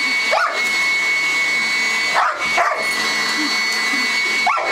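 Sanitaire commercial vacuum cleaner running with a steady high whine while a German Shepherd barks at it in short barks, about four times.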